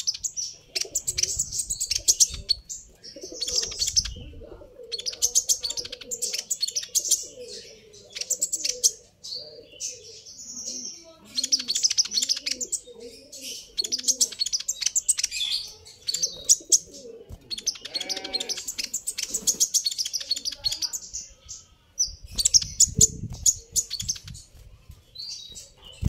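A small songbird twittering in rapid, high-pitched bursts of a second or two with short gaps between them, with softer low cooing calls underneath in the middle.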